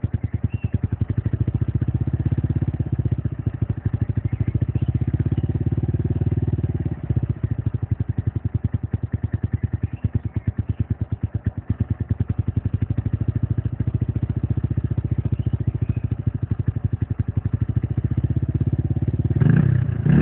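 Zealsun 150-19 motorcycle exhaust at idle, a steady run of even pulses that swells a little now and then, then a quick rev of the throttle near the end.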